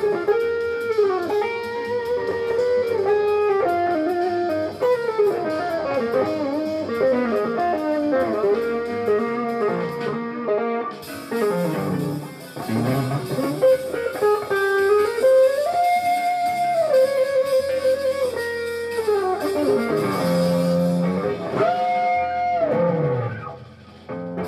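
Jazz fusion played on electric guitar: a lead line with fast runs and pitch bends and slides over an accompaniment, thinning and fading out near the end.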